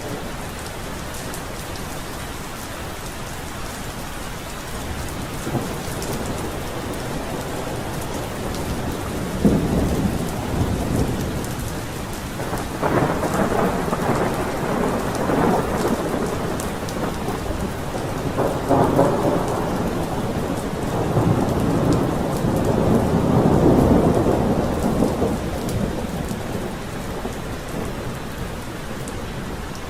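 Steady heavy rain falling, with rolling thunder rumbling in through the middle of the stretch, swelling in several waves and loudest about nine seconds in and again near twenty-four seconds before fading back to rain alone.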